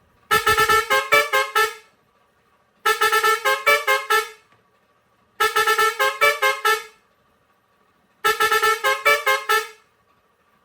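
Pioneairs 632S digital air horn with steel trumpet playing a short melody of quick, changing notes, sounded four times, each run about a second and a half long with a pause of about a second between.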